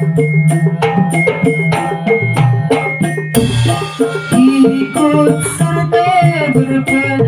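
A patrol music ensemble rehearsing: dense, fast pitched percussion strokes over a steady low tone. A crash comes about three and a half seconds in, followed by a wavering melody line above the percussion.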